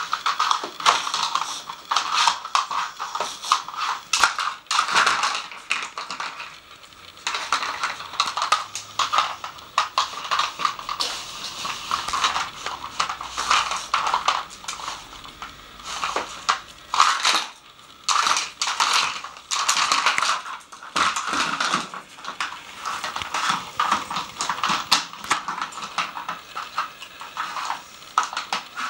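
Dog working a Nina Ottosson plastic treat puzzle: hard plastic lids knocking and clattering against the board and the wooden floor as it noses them off the treat wells, in a rapid irregular string of clicks with short pauses.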